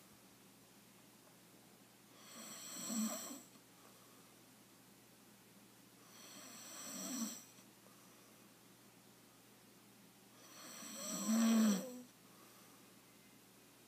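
A man snoring in his sleep: three snores about four seconds apart, each building up and cutting off sharply at its peak, the third the loudest.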